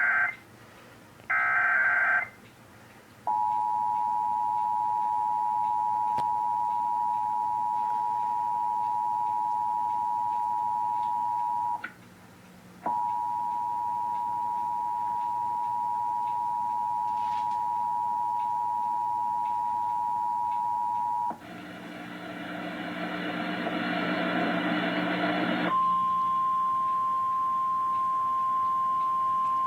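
Emergency Alert System tones for a severe thunderstorm warning on NOAA Weather Radio: two short screechy bursts of the digital alert header, then the steady two-tone attention signal held for about eight seconds, cut off briefly, and held again for about eight more. After a few seconds of hiss, the single steady warning alarm tone of NOAA Weather Radio begins.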